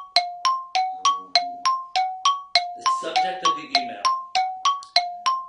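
Game-show countdown timer cue: short bell-like chimes alternating between two pitches, a low and a high, about three strikes a second in a steady tick-tock rhythm, counting down the time the contestant has to answer.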